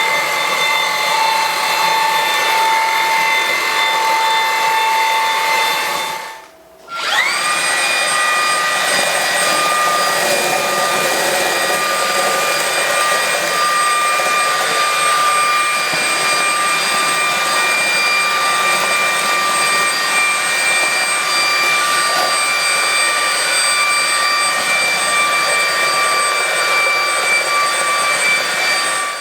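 Xiaomi Dreame V9P cordless stick vacuum running: a steady high motor whine over rushing air. About six seconds in it stops for a moment, then starts again, its whine quickly rising to a steady pitch.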